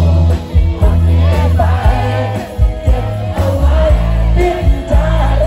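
Live band music with a male singer singing into a microphone over a loud PA: heavy bass, electric guitars and drum beats under the sung melody.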